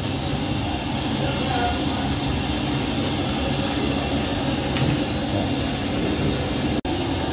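Steady mechanical hum and rumble with an even hiss over it, like a running fan or motor, cutting out for an instant near the end.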